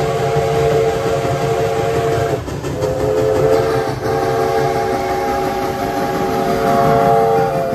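Steam whistle of ex-Canadian Pacific 3716, a 1912 Montreal Locomotive Works 2-8-0 steam locomotive, blowing for a grade crossing: several notes sounding together in a long blast that breaks off about two and a half seconds in, a short blast, then another long blast, the end of the crossing signal. The locomotive's low rumble runs underneath.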